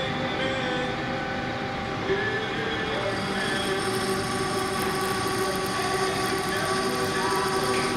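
Metal lathe running steadily with its gear whine while a cutting tool skims the burnt copper commutator of a 3 kW DC series motor, turning it true. About three seconds in, a fine scratchy hiss of the cut grows stronger.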